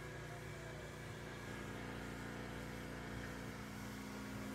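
Steady low mechanical hum with several fixed tones that hold pitch throughout, as of an engine or machinery running.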